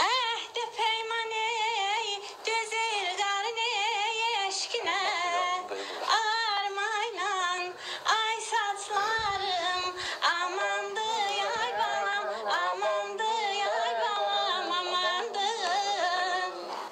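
A woman singing unaccompanied, holding long high notes with a fast wavering vibrato and quick ornamented turns.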